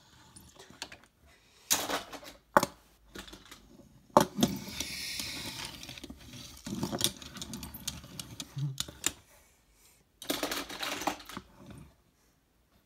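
Toy cars clattering and knocking together in a run of sharp clicks and knocks, with the loudest hits about two, two and a half and four seconds in, and more clatter around seven and ten to eleven seconds in.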